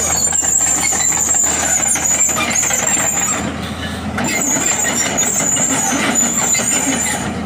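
Tata Hitachi 200 Super crawler excavator running, its diesel engine giving a steady rumble under a constant high-pitched whine. The whine drops out for about a second midway and stops shortly before the end.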